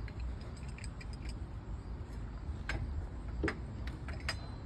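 A few light metallic clicks from a storm door handle set as its parts are handled and fitted onto the door, spaced roughly a second apart in the second half, over a steady low background rumble.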